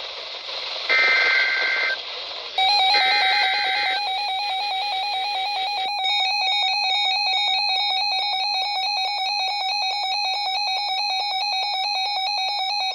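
Two short bursts of warbling EAS SAME header data from a NOAA Weather Radio broadcast, over static hiss. From about two and a half seconds in, a weather alert radio's alarm starts beeping rapidly and without stopping, and a second radio's alarm joins at about six seconds: the radios' alert for a received severe thunderstorm warning.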